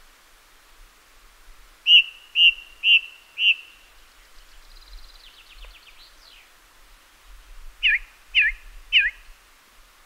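Song thrush singing in repeated phrases: a clear note given four times, then a quick run of thin falling notes, then a down-slurred whistle given three times near the end.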